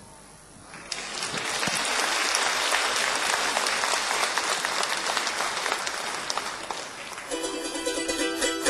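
Audience applause. About seven seconds in, a group of plucked string instruments starts playing a tune.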